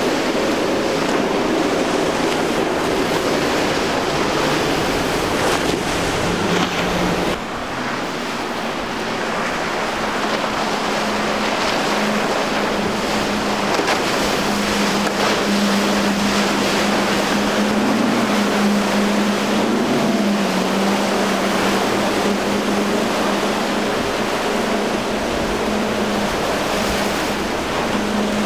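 Outboard motors running as boats cross a rough inlet, over steady surf and wind noise on the microphone. A steady engine hum holds through the second half, with a brief rise and dip in pitch about two-thirds of the way in.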